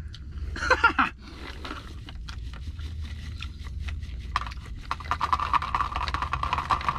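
Dried chili flakes shaken from a small jar onto a flatbread wrap: a run of quick light taps and rattles, after a short voice burst about a second in. A steady hum joins in the second half, over a constant low rumble.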